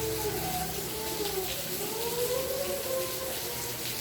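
Steady rain, with several overlapping tones that slowly rise and fall sounding through it, loudest in the second half.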